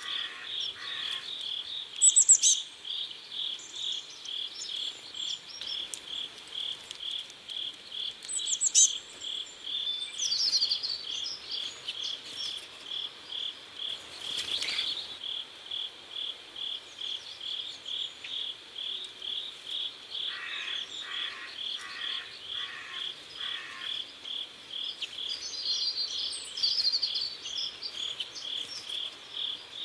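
Crickets chirping in a steady, even pulse, about three chirps a second. Short bird chirps break in a few times, loudest about two seconds in and again about nine seconds in.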